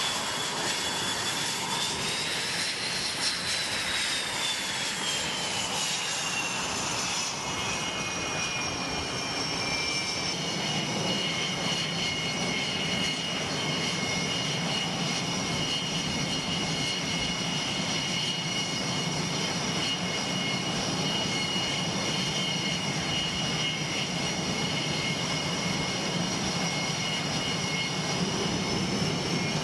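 F/A-18 fighter jet's twin jet engines running: a high whine that rises and then falls in pitch in the first few seconds, then holds steady with a low rumble underneath.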